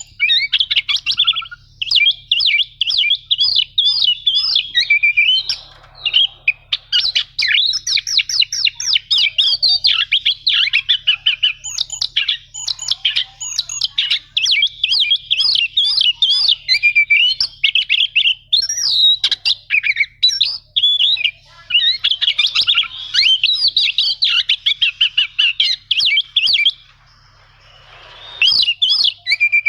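Oriental magpie-robin (kacer) singing a long, fast, continuous song of rapid chattering notes and rolling trills, with a short pause near the end.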